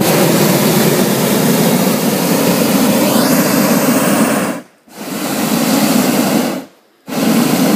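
Hot air balloon's propane burner firing in three blasts, one long blast of over four seconds and two shorter ones, each cutting in and off abruptly. The burner is heating the air in the envelope up to full just before liftoff.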